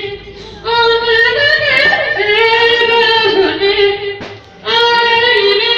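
A woman singing long, held phrases with a wavering pitch. The first phrase starts about two-thirds of a second in, and a second begins after a short break just past four seconds.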